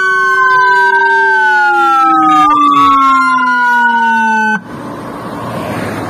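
Whelen 295SDA1 dual-tone electronic siren sounding through SA314 and lopro speakers: two wailing tones sliding slowly against each other, one falling while the other rises, loud. It cuts off abruptly about three-quarters of the way in, leaving a lower, fainter rushing noise.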